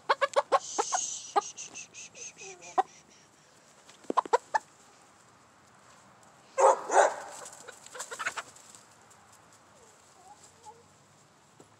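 Chicken clucking: a quick run of short clucks at the start, a few more about four seconds in, and a louder outburst a little after halfway.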